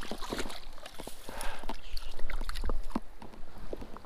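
Scuffing, scraping and water splashing at a stream edge while a hooked trout is brought to the bank, with wind rumbling on the microphone.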